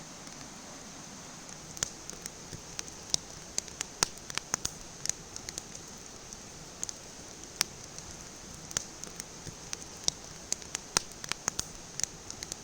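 Campfire crackling: irregular sharp pops and snaps, several in quick succession at times, over a steady background hiss.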